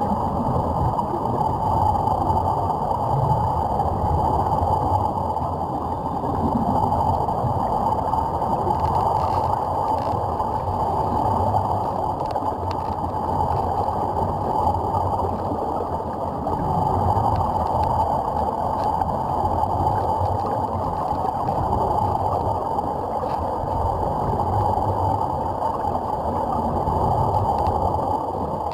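Steady, muffled underwater rushing and bubbling of air streaming out of surface-fed SeaTrek diving helmets, with little treble and a slow rise and fall in loudness.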